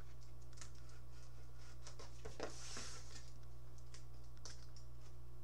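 Faint scattered clicks, taps and a brief crinkling rustle of a cardboard shipping box and cans being handled, over a steady low electrical hum.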